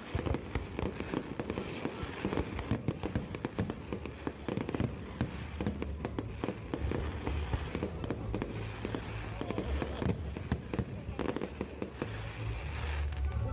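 Fireworks display: a dense, unbroken barrage of bangs and crackles, many pops a second, with a low rumble underneath from about halfway through.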